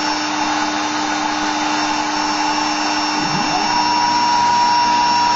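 Homemade desktop CNC router running: the spindle motor whirs steadily. About three seconds in, a lower whine dips and rises, then a steady higher whine comes in as the machine moves, at the start of a hole-drilling program.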